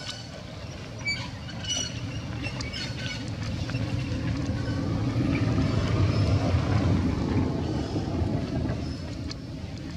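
Low rumble of a passing vehicle, swelling to its loudest about six seconds in and then fading, with a few short high chirps and clicks in the first few seconds.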